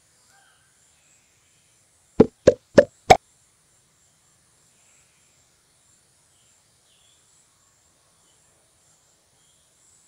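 Four short, sharp pops in quick succession, about a third of a second apart, around two seconds in. Under them runs a faint, steady, high-pitched chirring of insects.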